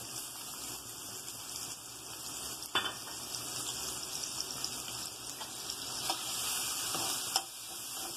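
Chopped onions sizzling in hot oil in a metal kadai, stirred with a utensil that scrapes and knocks against the pan. There is a sharp knock about three seconds in and another near the end.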